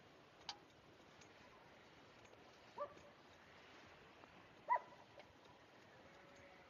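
A dog barking twice, two short barks about two seconds apart, the second louder, after a single light click.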